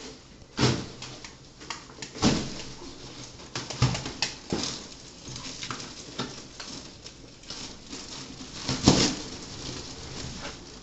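Irregular knocks, thumps and rustles of a memory foam mattress and its plastic wrapping being handled, with the loudest thump near the end.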